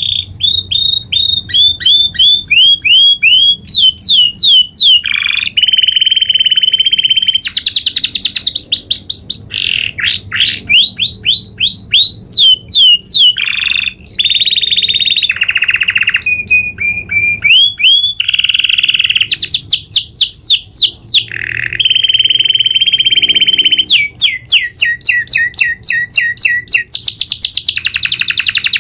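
Domestic canary singing a long unbroken song of rolls and trills: quick series of repeated sliding chirps alternate with fast buzzing rolls, each phrase changing to another after one to three seconds with no pause.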